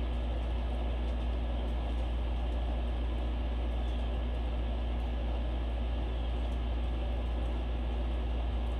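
Steady low rumble and hiss of background room noise with a faint steady hum, unchanging throughout; the spider's feeding is not heard.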